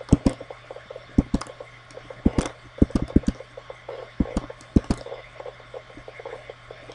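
Irregular sharp clicks of a computer mouse and keyboard, a few a second at times, over a faint steady low hum.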